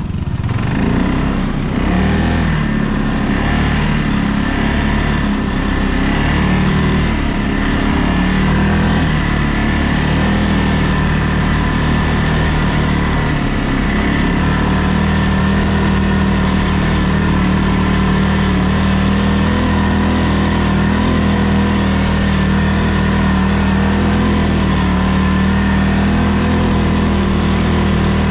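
ATV engine running under way, its pitch rising and falling through the first half, then holding steady from about halfway.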